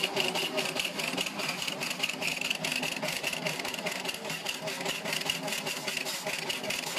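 Sugarcane peeling machine running as it scrapes the skin off a sugarcane stalk: a rapid, even mechanical clatter that holds steady throughout.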